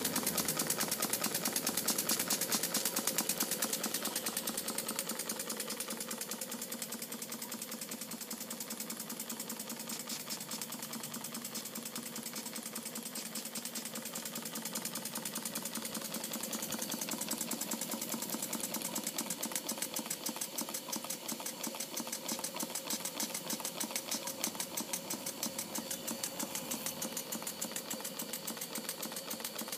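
Model vertical entablature steam engine running steadily on steam, with a rapid, even beat of exhaust and valve-gear clicks over a hiss.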